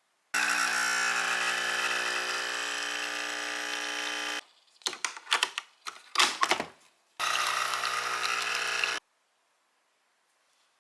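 Small electric kitchen appliance motor running steadily for about four seconds, then a few seconds of irregular knocks and short bursts, then running again for about two seconds before cutting off suddenly.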